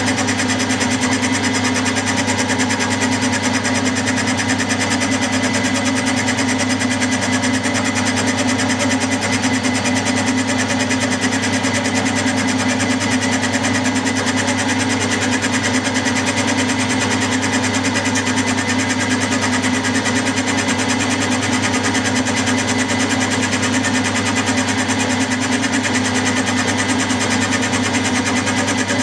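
Milling machine running steadily, its 60-degree dovetail cutter feeding along a cast-iron lathe bed and cutting the angled bedways.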